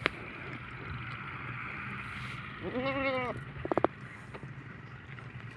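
A goat bleats once about halfway through, a wavering call lasting under a second, followed by a quick run of four sharp clicks, over a steady background hiss.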